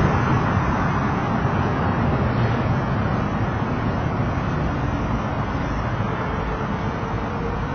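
Steady wind and road noise on a camera microphone riding along on a moving bicycle, mixed with passing car traffic; a faint steady tone joins about six seconds in.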